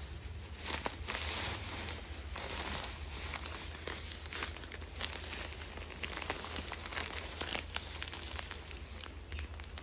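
Packaging being handled and crinkled, with many small irregular crackles and clicks throughout.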